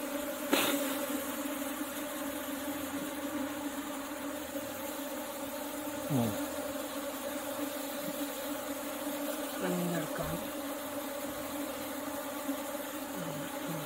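A mass of honeybees buzzing in a steady, low hum. There is a single brief knock about half a second in.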